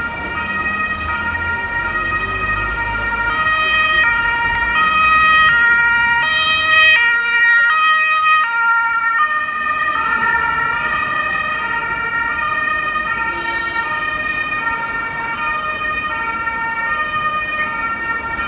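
Ambulance's German two-tone siren (Martinshorn) sounding on an emergency run, its two notes alternating steadily. It grows louder as the ambulance approaches, is loudest about seven seconds in, drops slightly in pitch as it passes, and carries on somewhat quieter as it drives away.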